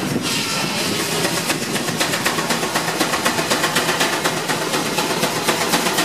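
Portable steam engine running, belted to a sawmill. Its exhaust beats quickly and evenly, several beats a second, with a burst of steam hiss right at the start.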